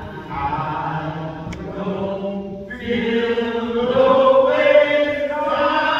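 A man's voice chanting in a melodic, sung line rather than plain speech, quieter at first and then louder about three seconds in, with long held notes that climb in pitch.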